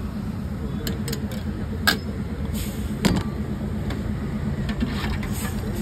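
A motor vehicle engine idling steadily, with several sharp metallic clinks of a steel ladle against a steel pot while sambar is served.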